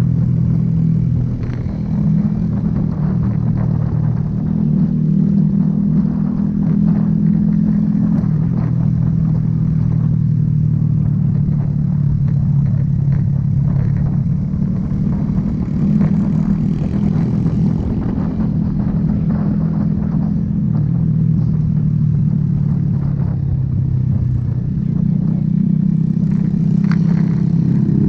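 Motorcycle engine running under way, heard from the ridden bike itself, its note shifting up and down every few seconds with the throttle.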